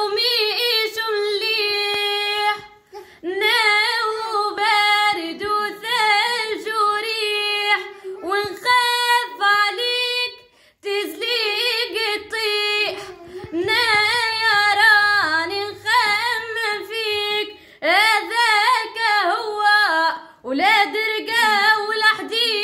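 A young woman singing solo, with long held notes and wavering, ornamented turns in pitch, broken by a few short pauses between phrases.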